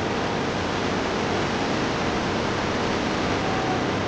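Waterfall cascading, a steady, dense rush of falling water.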